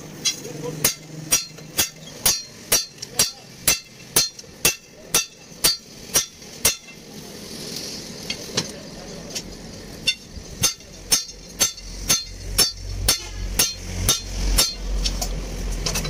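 Hammer blows on steel, about two a second, each with a short metallic ring. They pause briefly about seven seconds in, then resume, and a low rumble rises under them near the end.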